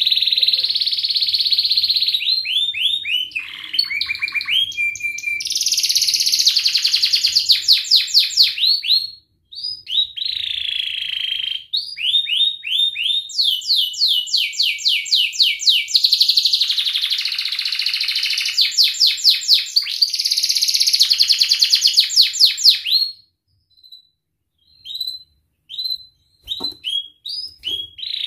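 Domestic canary singing a long, loud song of rapid rolling trills and runs of repeated notes, changing pattern every second or two with a brief pause near nine seconds. The song stops about 23 seconds in, and only short scattered chirps follow.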